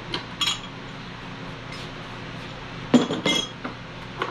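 Sharp metal clinks and clanks of a pipe wrench being taken off a steel pipe and handled, a few scattered knocks with the loudest pair about three seconds in.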